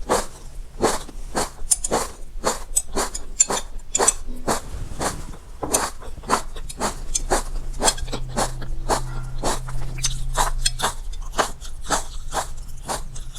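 A pet lapping water in a steady rhythm of short wet laps, about three a second.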